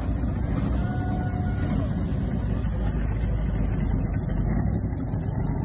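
Supercharged V8 of a late-1960s Chevrolet Corvette convertible running with a deep, steady rumble as the car drives past.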